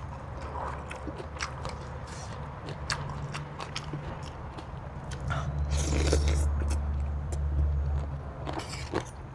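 Close-miked eating: chewing with sharp crunches and wet mouth clicks, as the spicy seafood papaya salad is eaten. A louder, lower chewing stretch comes about halfway through.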